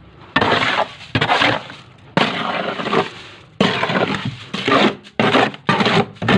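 A series of loud crashes of hard material breaking, about nine of them at uneven intervals, each sudden and lasting a fraction of a second.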